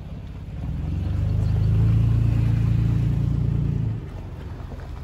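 A truck's engine and road noise while driving: a low steady hum that grows louder about a second in, holds for a few seconds, then drops back near the end.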